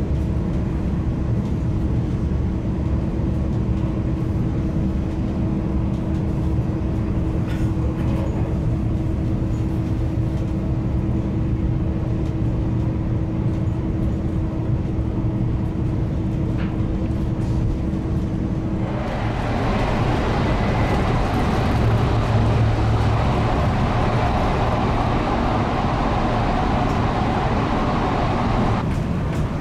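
Frecciarossa 1000 high-speed train running at speed, heard from inside: a steady low rumble with a constant hum. About nineteen seconds in it turns louder and hissier as the vestibule between coaches is reached, then drops back near the end.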